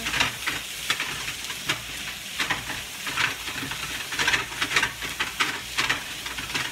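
Shredded chicken sizzling as it browns in a frying pan, with a spatula stirring and scraping it around the pan in short, irregular strokes.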